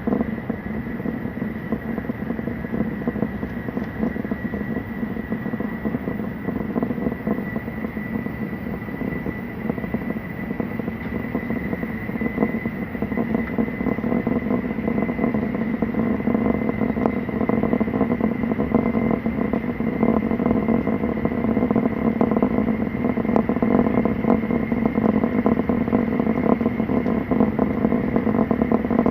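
Running noise of a Tokaido Shinkansen heard inside the passenger car: a steady rumble of the train at speed with a thin high whine that rises a little, growing slightly louder in the second half.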